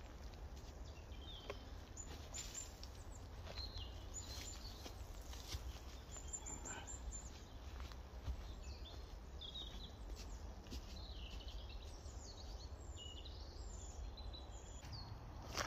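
Small woodland birds chirping and calling, many short chirps and whistles, over a faint steady low rumble.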